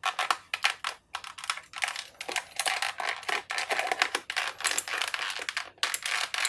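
Keys of a clicky mechanical keyboard being pressed in rapid, irregular succession, a dense run of sharp clicks and clatter.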